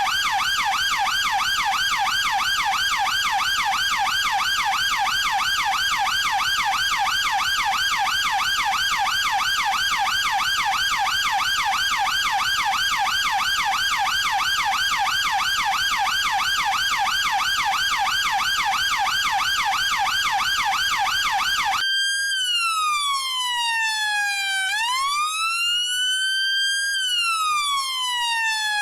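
UK police car's electronic siren in a rapid yelp that switches abruptly, about three-quarters of the way through, to a slow rising-and-falling wail.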